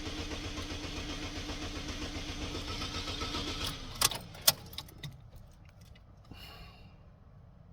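A 2006 Saturn Ion's 2.4-litre four-cylinder engine being cranked by its starter, a steady rhythmic churn with a starter whine, for about three and a half seconds without catching, then winding down. Two sharp clicks follow. It turns over on a good battery but won't fire, a fault the owner cannot yet identify.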